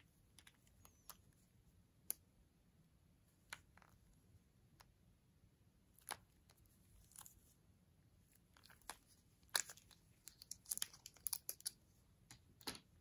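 Faint scattered clicks and rustles of a clear plastic tap case handled in disposable-gloved hands. A quicker, louder run of clicks comes in the last few seconds as the case is opened and the spiral tap slid out.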